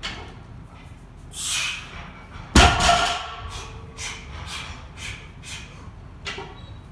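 A barbell loaded with 230 kg of bumper plates comes down on a wooden lifting platform about two and a half seconds in, one heavy thud with a brief metallic ring from the plates. This is the bar landing between reps of a deadlift set. Around it come short, forceful breaths from the lifter bracing between reps.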